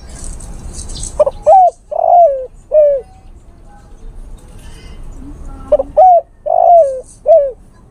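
Spotted dove (tekukur) cooing: two phrases of four notes each, the third note drawn out longest. It is the male's call to a female.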